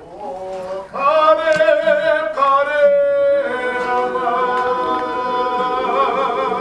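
Unaccompanied Māori singing by the performing group: a high voice starts softly, then from about a second in sings strongly, holding long, slightly wavering notes.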